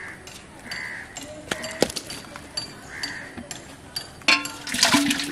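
Small clicks and clinks of handling, then about four seconds in a knock against an aluminium pot and a second of splashing as a caught fish is put into the water inside it.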